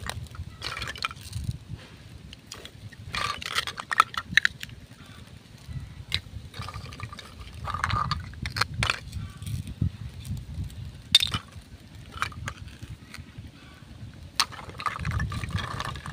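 Plastic toy fruit and vegetable pieces clicking and clacking as they are handled, pulled apart and dropped, with short raspy scrapes now and then, over a low steady rumble.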